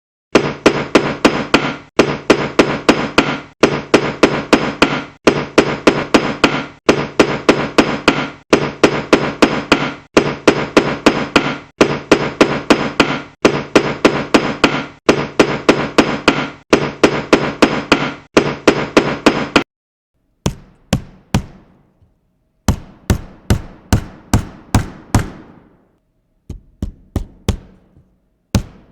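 A hammer striking repeatedly in quick runs of about five or six blows. In the first part each blow rings. About two-thirds of the way in, the blows change to crisper knocks in shorter runs with pauses between them.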